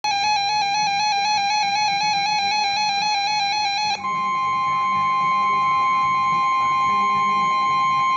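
Emergency Alert System tones: a loud electronic tone warbling rapidly between two pitches for about four seconds, then, after a brief break, the steady two-tone EAS attention signal.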